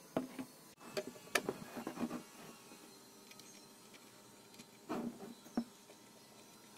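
Woodworking sounds: two short clusters of sharp knocks and clicks, the first from just after the start to about two seconds in, the second around five seconds in.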